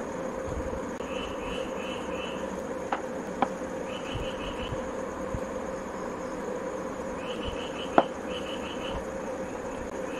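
A person eating poori by hand, tearing the bread and chewing, with a few sharp mouth clicks, the loudest about eight seconds in. Under a steady hum, high chirps come in quick groups of four or five, repeating every few seconds.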